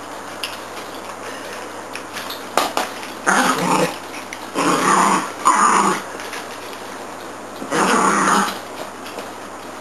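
Small dog growling in four short bouts, each under a second long, while at play with a toy ball.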